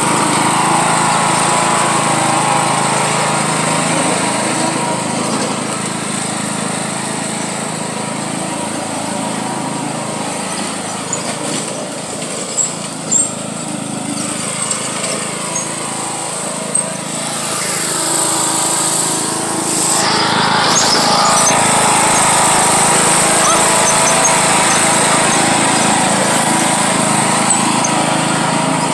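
John Deere riding lawn mower engine running steadily while it tows a rider on a rope. It grows fainter as the mower moves off, then comes back louder about two-thirds of the way through.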